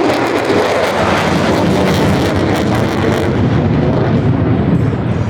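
Jet aircraft flying past at an air show: a loud, sustained roar with a ragged crackle in the first few seconds, the sound deepening into a heavy low rumble in the second half.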